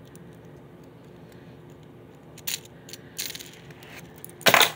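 Handling noise: light clicks and rattles of a hard plastic fishing lure and its hooks being handled, then rustling that ends in a loud, brief scuff near the end.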